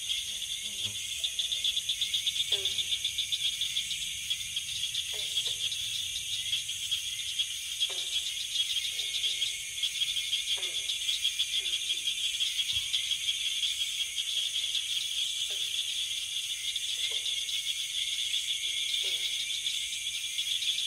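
Dense, steady insect trilling, like a night chorus of crickets, with short falling calls repeating every one to three seconds beneath it.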